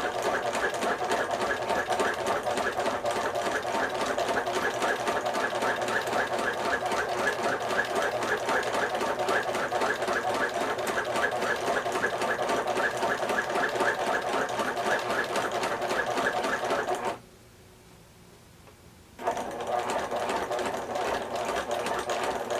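Sewing machine stitching a seam through fabric at a steady, fast rate. It stops for about two seconds near the end, then starts stitching again.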